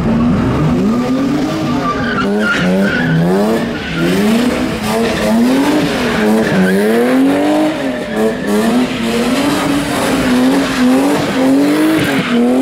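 Car engine revving up and falling back over and over, roughly once a second, with tyres skidding in a burnout.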